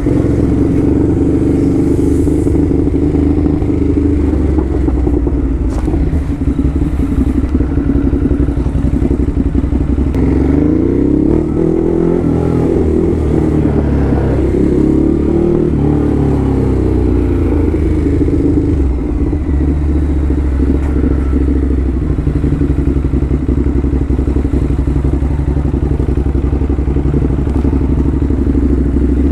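Ducati Hypermotard motorcycle engine rumbling at low speed in city traffic. From about ten seconds in the revs rise and fall through a few throttle blips, then it settles back to a steady run.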